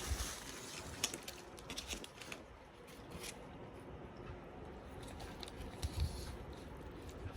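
Close-miked eating sounds: soft wet chewing with scattered small clicks and crackles, and a couple of low thumps about six seconds in.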